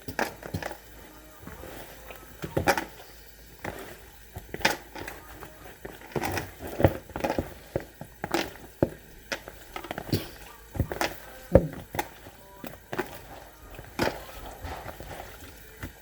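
Hands mixing raw chicken pieces with spice mix and marinade in a bowl: irregular wet squishes and soft thuds, several a second.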